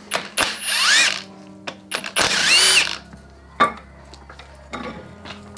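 Cordless power tool backing out a bolt on the front of an engine block, its motor spinning up in two short runs with a rising then falling whine, followed by a few light metal clicks.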